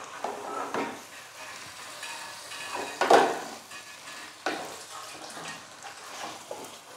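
A spatula stirring raw chicken pieces through a tomato-onion masala in a stainless steel pot, sautéing it over a low sizzle. The strokes scrape irregularly, the loudest about three seconds in.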